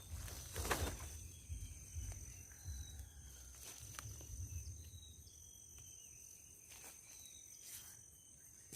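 Faint outdoor ambience: a steady high-pitched insect drone with scattered short chirps, a few light clicks and a low rumble.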